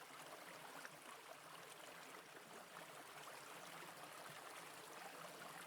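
Faint, steady running water of a brook.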